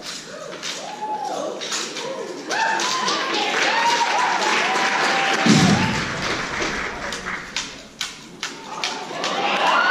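Rifle drill by a drill team: a run of sharp slaps and clicks as hands strike and handle the rifles, with a heavy thud a little past halfway, like rifle butts or feet striking the stage together.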